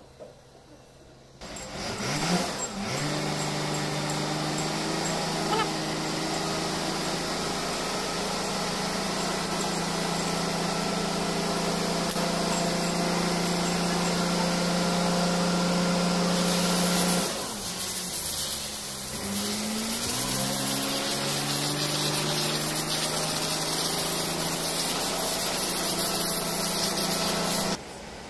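A motor or engine running steadily with a low hum. It comes in suddenly about a second in and rises in pitch as it speeds up, dips partway through, speeds up again, then cuts off suddenly near the end.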